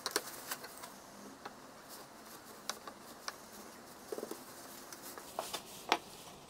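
Light clicks and knocks of small pine pieces being set down and pressed together on a sheet of glass: scattered single taps, a quick little cluster about four seconds in, and the sharpest tap near the end.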